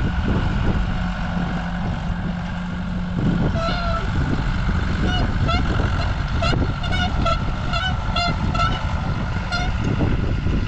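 Repeated high-pitched squeaks, two or three a second, start a few seconds in from a dry, ungreased part of farm machinery. They sit over heavy wind noise on the microphone and a low engine hum.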